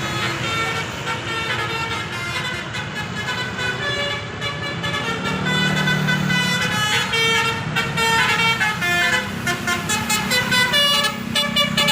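A bus's Basuri telolet horn, a set of melodic air horns, playing a tune of held notes that step from pitch to pitch. The notes change faster near the end.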